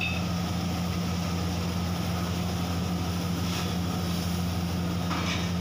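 Steady low roar of a commercial gas wok burner running at full flame, with chilli sauce bubbling in the iron wok.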